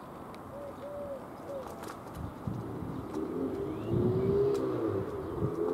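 A pigeon cooing: a few short rounded notes near the start, then a longer run of coos about halfway through. Beneath it, a low rumble rises from about halfway, as the steam locomotive Flying Scotsman approaches.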